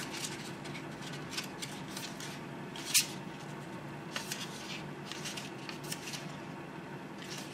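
Pages of a paperback book being flipped and bent back by hand: soft, irregular paper rustles and flicks, with one sharper paper snap about three seconds in.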